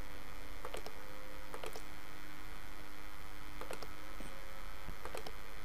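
Steady electrical mains hum with a handful of short computer mouse clicks, some in quick pairs.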